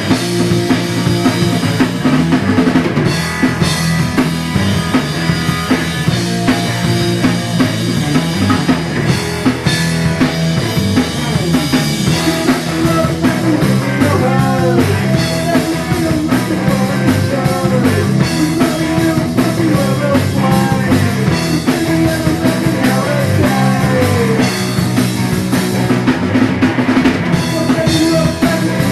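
Instrumental rock music with a full drum kit (bass drum and snare) driving a steady beat under pitched instruments, some notes sliding in pitch around the middle.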